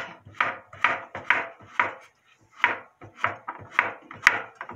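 Kitchen knife slicing a cucumber on a wooden cutting board: a quick, uneven series of chopping knocks, about three a second, as the blade goes through the cucumber onto the wood.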